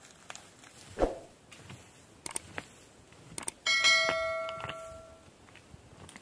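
Subscribe-button animation sound effect: a few quick mouse clicks, then a notification bell dings once and rings out over about a second and a half. Earlier, about a second in, a dull thump.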